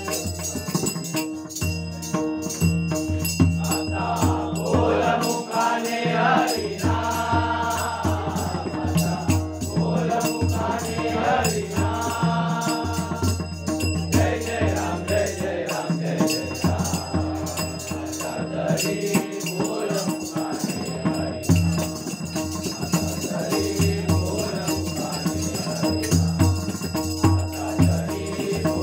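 Marathi devotional bhajan: a young girl singing over a harmonium, with a hand drum and small jingling cymbals in the accompaniment.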